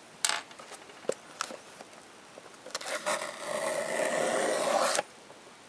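A few light clicks of handling, then a craft knife's blade drawn along the packing-tape seam of a cardboard box: about two seconds of steady scratchy cutting that stops abruptly.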